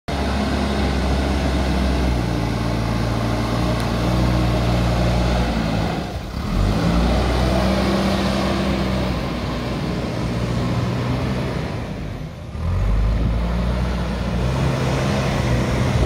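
JCB backhoe loader's diesel engine running under load as the front bucket pushes soil, its pitch shifting as the throttle changes. The sound drops briefly twice.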